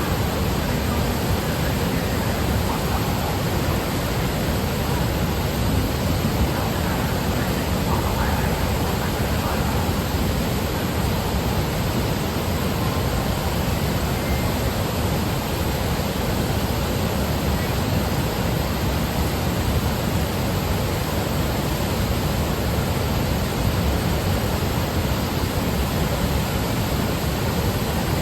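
Loud, steady rush of water from Fukiware Falls and the rapids of the Katashina River, an even unbroken noise with no lulls.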